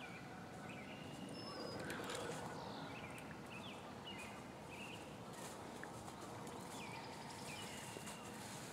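Footsteps crunching through dry leaf litter as a person walks closer, with small birds chirping repeatedly in the background.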